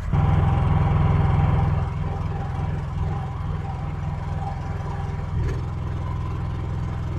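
Small pull-start portable generator running steadily while powering the coffee maker, heard up close. It is louder for the first two seconds, then steady at a slightly lower level, with a brief knock about five and a half seconds in.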